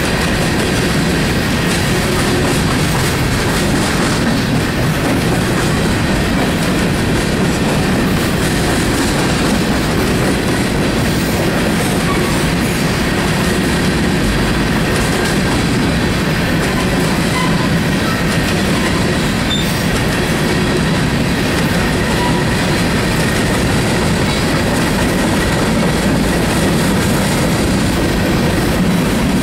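Loaded grain train's covered hopper cars rolling past close by: a steady, unbroken rumble of steel wheels on rail with clickety-clack over the rail joints.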